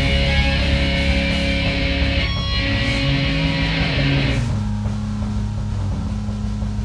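Live rock jam led by electric guitar, playing through a bar's sound system; about four and a half seconds in the playing stops, leaving only a steady low tone ringing on.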